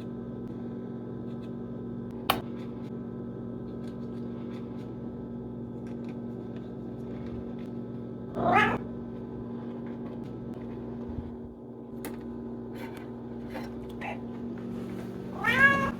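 Domestic cat meowing twice, once about halfway through and once near the end, each call rising in pitch. The meows are begging for food at feeding time.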